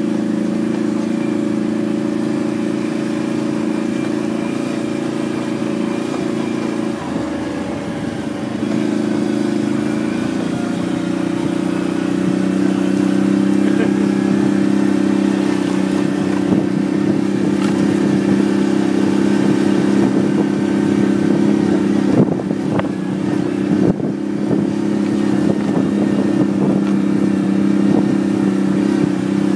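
ATV engine running steadily while riding over rough grass. The engine eases off briefly around seven seconds in, then picks back up. Several knocks and rattles come through in the second half.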